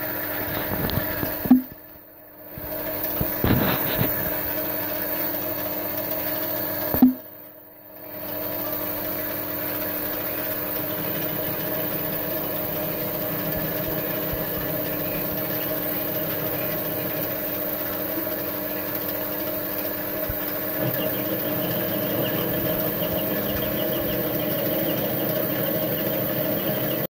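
Small metalworking lathe running steadily, its chuck spinning while the hex head of a steel bolt is turned down round. A sharp click comes twice in the first eight seconds, each followed by a brief drop in the sound.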